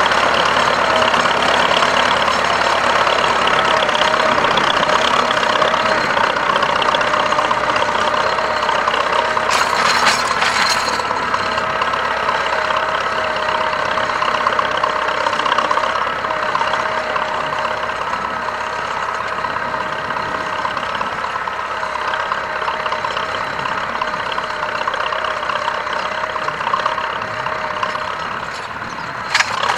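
Belarus T-40 tractor's air-cooled diesel engine running steadily under load while ploughing, gradually fading. Two brief sharp knocks, one about ten seconds in and one near the end.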